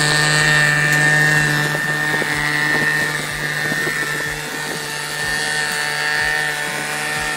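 Vertical milling machine face-milling the deck of an aluminium cylinder head: the spindle and cutter run with a steady drone and a steady high whine.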